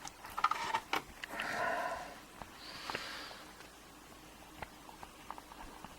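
Faint clicks and small knocks from hands adjusting the camera set-up, with two soft breathy rushes, one around a second and a half in and a higher one about three seconds in.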